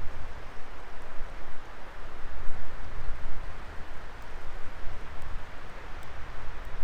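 Wood fire burning in a Coleman Fire Disc fire pit: a steady rushing hiss with a few faint crackles, over a low, uneven rumble.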